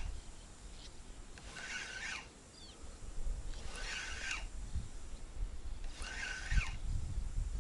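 Spinning reel cranked in short spurts, three in a row about two seconds apart, each a brief whirring rasp: the stepped retrieve of a jig, with pauses while the lure drops. Low wind rumble on the microphone runs beneath.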